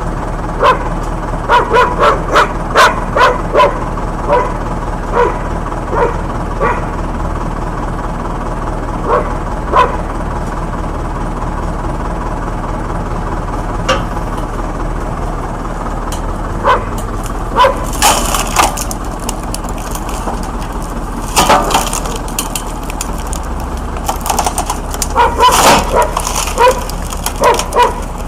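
An engine runs steadily while many short, sharp cracks or barks sound over it, often several in quick succession.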